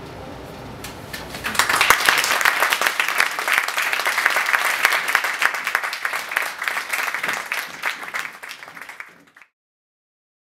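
Audience applause, beginning about a second and a half in as the last notes of the band fade, then slowly tapering off until it is cut off suddenly near the end.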